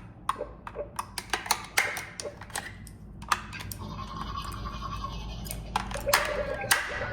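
Irregular sharp clicks and taps of small hard objects being handled, with a faint steady tone in the middle.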